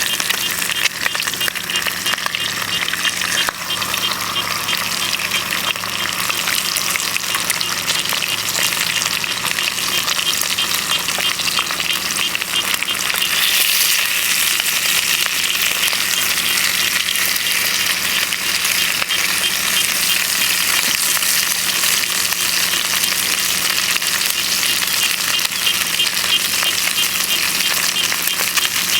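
Bacon and eggs frying in a frying pan: a steady, dense sizzle and crackle of fat that gets a little louder about halfway through.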